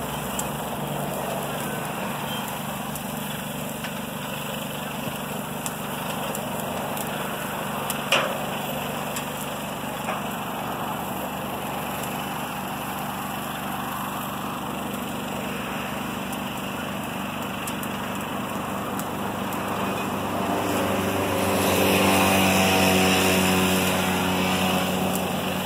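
A small engine running steadily, growing louder from about 20 seconds in and easing near the end, with one sharp knock about 8 seconds in.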